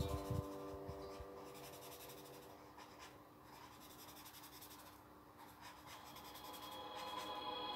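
Pencil sketching on paper: soft, scratchy strokes, with faint held notes of background music that grow louder near the end.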